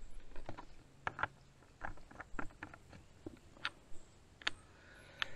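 A dozen or so soft, irregular clicks and ticks while a squeeze water filter is being handled and tried out.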